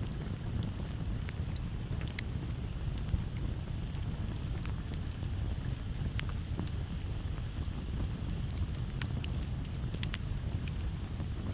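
Campfire crackling: sharp snaps and pops at irregular moments over a low, steady rumble. A steady, high cricket trill runs underneath.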